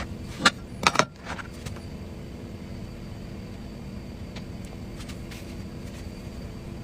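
Three sharp clicks or taps in quick succession about half a second to a second in, over a steady low background hum.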